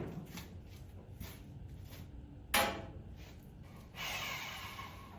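Tool-handling clatter: a few light knocks, one sharper metallic clack about two and a half seconds in, then a short hiss near the end. No power tool is running.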